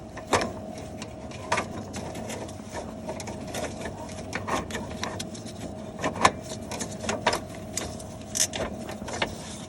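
Irregular clicks and metal knocks of hand tools and parts being worked during A/C compressor removal, a few sharper knocks among them, over a steady hum.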